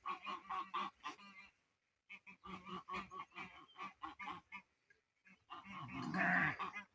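Domestic geese honking in runs of short, quick calls, with a louder, longer burst of calls near the end.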